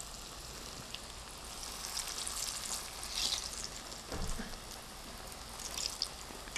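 Cassava fritters (bánh cay) deep-frying in a pot of oil at medium heat: a steady sizzle and crackle of bubbling oil. There are a few louder spatters and a short soft thump a little after four seconds in.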